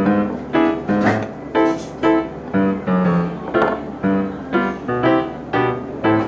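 Background music led by a piano-like keyboard, its notes starting evenly about twice a second.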